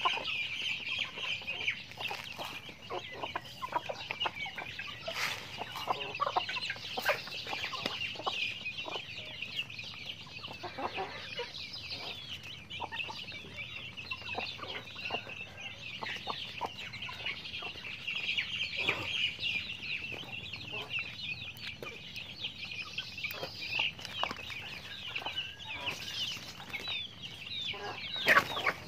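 A backyard flock of chickens: many chicks peep constantly in a dense high chorus, and hens cluck here and there among them.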